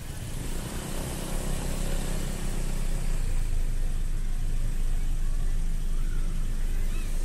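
Steady low engine rumble with road and wind noise from a vehicle moving along a street in light traffic. It gets a little louder about a second and a half in.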